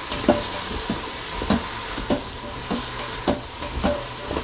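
Cauliflower florets being stirred in an Instant Pot's inner pot on sauté, with a steady sizzle of butter and garlic. The utensil scrapes and knocks against the pot in an even rhythm, a little under two strokes a second.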